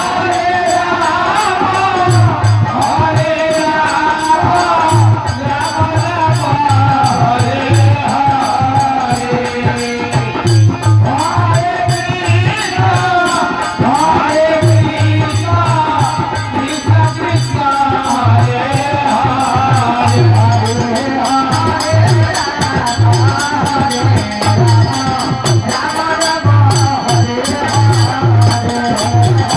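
Devotional kirtan: a voice singing over a fast, steady rhythm of jingling hand percussion and a low beat.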